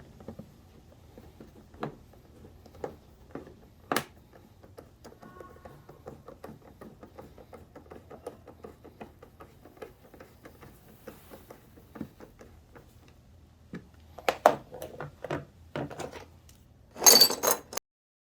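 Small clicks and knocks of tools and parts being handled, scattered at first, then louder and busier towards the end. They end in a loud clatter just before the sound cuts off, over a faint low hum.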